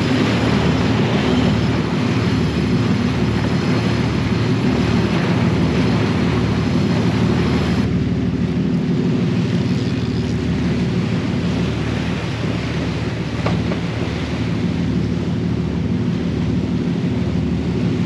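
Engines of a 31-foot Bertram sportfishing boat running with a steady low drone under a rushing hiss of wind and water. The hiss drops off suddenly about eight seconds in.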